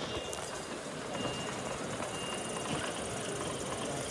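A short high electronic beep repeating about once a second over the steady background din of a busy exhibition hall.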